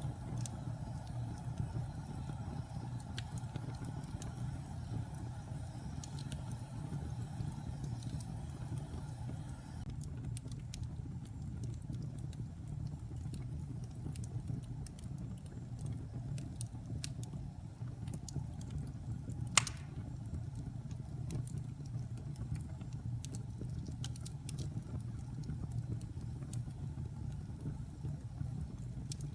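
Wood fire burning in a fireplace: a steady low rumble of flames with scattered small crackles, and one louder pop about two-thirds of the way through.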